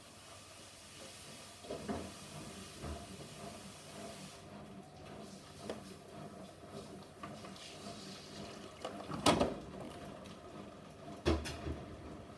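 Electrolux washing machine running with an unbalanced load: a faint steady hum broken by a few irregular knocks and thuds, the loudest about nine seconds in.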